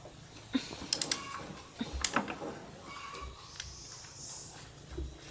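Small mechanical parts or tools being handled: a quick run of three sharp clicks about a second in, another click a second later, then faint clatter.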